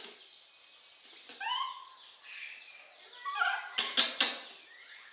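A few short, high-pitched calls from a young animal, each rising and then levelling off. Two sharp clicks come about four seconds in.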